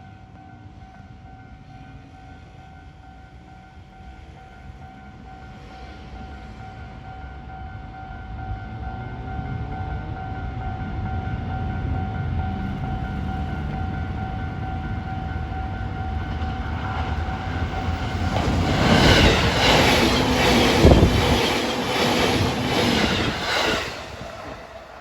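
Japanese level-crossing warning bell ringing steadily as a JR East E233-series electric train approaches, its rumble building. About 18 seconds in, the train passes close by, loud, with rhythmic clacking of its wheels over the rail joints, then the noise drops away near the end.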